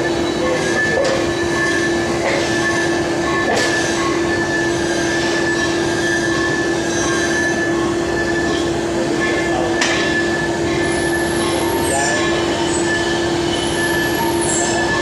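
Metal lathe running and cutting: a steady machine noise with a constant hum and a higher steady whine, broken by a few sharp knocks, with short high squeals near the end.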